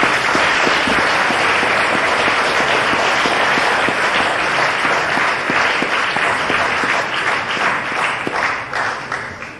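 Audience applauding steadily, a dense patter of many hands clapping, which dies away near the end.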